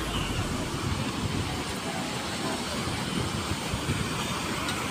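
Sea surf washing steadily onto the beach, with wind buffeting the microphone in low, uneven rumbles.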